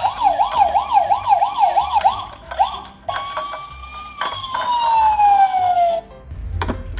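Electronic toy emergency-vehicle siren wailing rapidly up and down, about four cycles a second, then a held siren tone that glides steadily down in pitch over about two seconds. A few clicks and a low rumble come near the end.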